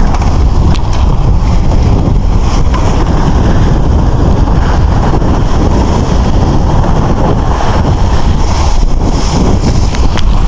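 Pickup truck driving through mud and standing water, heard from a camera mounted on its outside: loud, steady wind buffeting on the microphone over the rush of tires and splashing mud, with a few sharp ticks.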